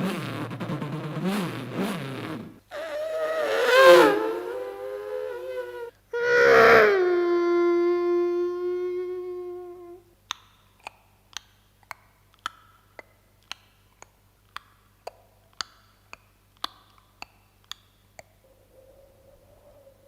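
A man imitating a string of sound effects with his voice and mouth. First comes a pulsing engine-like drone, then a sound sliding in pitch, then a sharp hit that turns into a long held note fading away. After that come short clicks about two a second, and a faint hum near the end.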